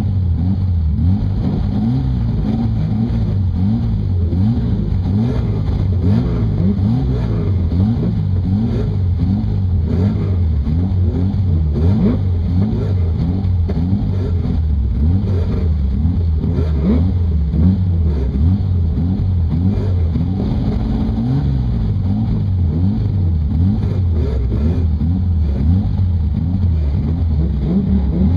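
Racing car engine heard from inside the car at speed, its pitch climbing and dropping back again and again through the gear changes.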